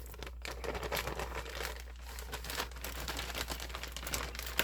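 Plastic packaging crinkling and rustling steadily as a cross-stitch kit is handled and taken out of its bag.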